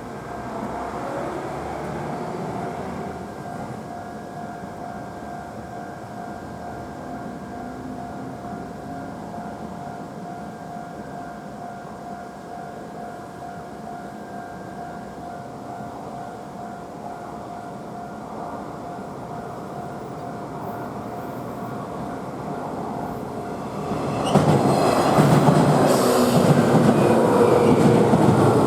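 Japanese level crossing warning bell ringing steadily. About three-quarters of the way through, a train passes much louder, its wheels clattering over the rail joints.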